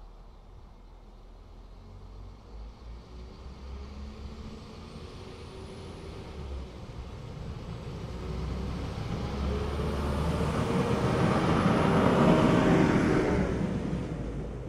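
Class 197 diesel multiple unit approaching and running past: its engine note and wheel-on-rail noise grow steadily louder, peak about twelve seconds in, then fall away as it goes by.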